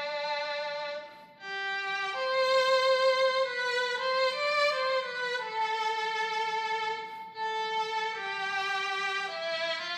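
Roland Aerophone digital wind instrument playing a slow melody with a violin-like tone. It holds sustained notes joined by smooth slides, and there are two brief breaks for breath, about a second in and again past the seven-second mark.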